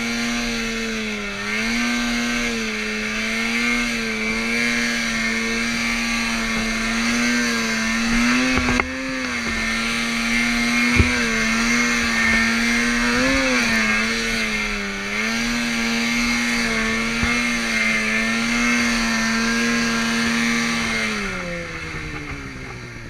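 Snowmobile engine running at high, steady revs with small dips and recoveries as it rides through deep snow. Near the end the throttle is let off and the engine note falls away.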